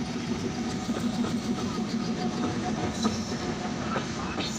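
A train moving along the rails: a steady heavy rumble with sharp wheel clicks scattered through it and a few faint squeals.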